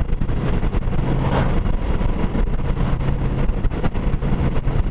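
Wind rushing and buffeting over a helmet-mounted action camera's microphone at road speed, with the steady low hum of a Honda Gold Wing motorcycle's engine underneath.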